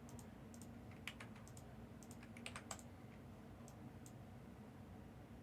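Faint, scattered keystrokes on a computer keyboard, a few light clicks a second, over a low steady hum.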